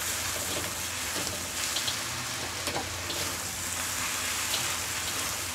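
Stir-fried noodles with sausage and green chilies sizzling in a hot wok while being stirred and tossed with a spatula; a steady sizzle with faint ticks of the spatula.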